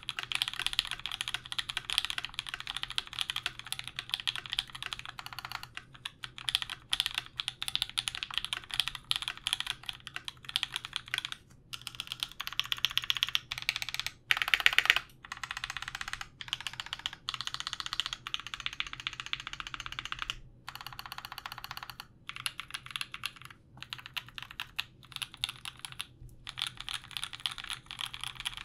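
Custom mechanical keyboard being typed on fast and continuously, with a few short pauses: a Canoe Gen2 with lubed and filmed SOHO switches on an aluminum plate, under GMK Bento keycaps. The board has a slightly hollow sound, which the builder puts down to the empty case bottom without foam.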